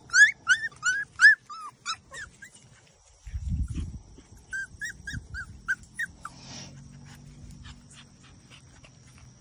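Goldendoodle puppies yipping: a quick run of short, high-pitched yelps at the start and another run about four and a half seconds in, with a low rustle in between.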